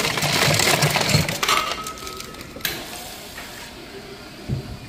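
Ice cubes clattering out of a soda fountain's ice dispenser into a foam cup for the first second and a half, then a quieter steady hiss of soda pouring from a fountain valve into the cup.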